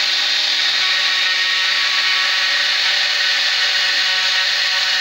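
Spindle motor of a home-built GRBL CNC router running steadily while its end mill cuts a circular pocket into a wooden block: a constant whine with the noise of the cut, unchanging throughout.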